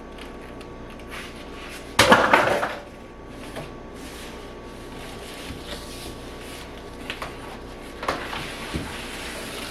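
Cardboard box and styrofoam packing being handled: one loud, brief scrape about two seconds in, then a few light knocks near the end.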